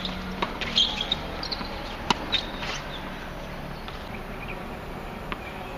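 Tennis ball struck by rackets during a rally on a hard court: a few sharp pops in the first half, the sharpest about two seconds in, with short high squeaks in between.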